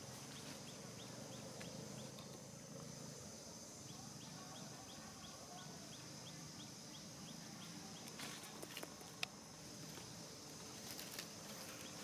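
Quiet outdoor wildlife ambience. A steady high insect drone runs throughout, with a run of short, high chirps at about three or four a second in the first half. A few light clicks and rustles come near the end.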